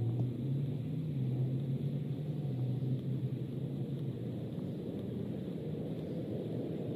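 Steady low outdoor rumble with a distant engine hum that rises slightly in pitch about a second in and fades out around four seconds in.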